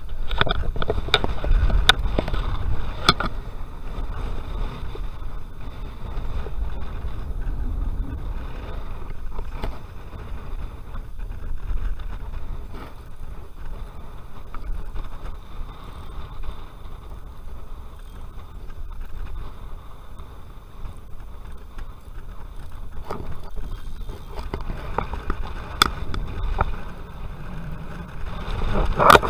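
Steady low rumble of wind on the microphone, with a few sharp knocks from handling a spinning rod and reel near the start and again near the end.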